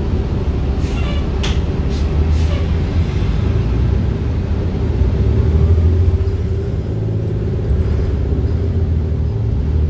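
Onboard a TTC city bus while it drives: steady low engine and road rumble, with a few short rattling clicks about one to two seconds in.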